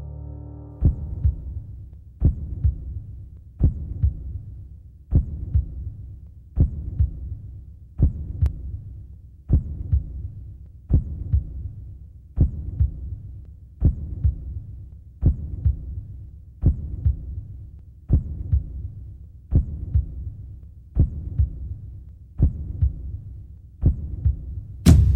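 Heartbeat sound effect: slow, steady double thumps (lub-dub), one pair about every one and a half seconds, ending with a single louder hit near the end.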